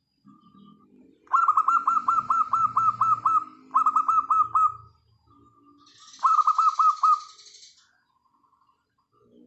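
Local wild-type zebra dove (perkutut) singing: three runs of quick, clipped cooing notes, the first about ten notes long and the next two about five each.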